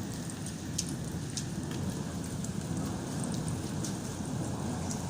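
Heavy rain pouring steadily, with a dense low rush and scattered sharp ticks of drops striking close by.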